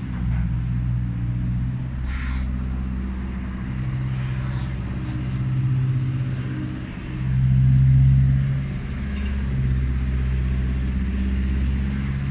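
Steady low mechanical hum of a running engine or motor, swelling loudest about eight seconds in.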